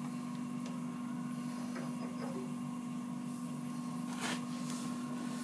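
Tool post grinder on a lathe running with a steady hum, after finish-grinding an R8 arbor taper. A few light clicks and knocks, the clearest about four seconds in, come from the arbor being handled and lifted off the centres.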